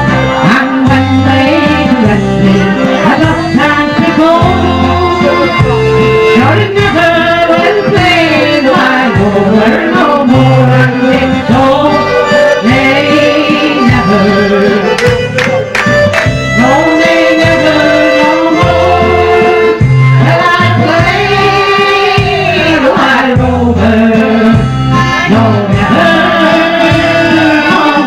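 Electronic keyboard playing a tune over a bass line and rhythm accompaniment.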